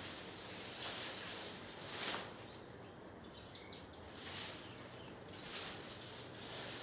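Leafy branches and hay rustling in several short swishes as an elephant calf moves through her bedding, the loudest about two seconds in. A few faint, short bird chirps come in the middle and near the end.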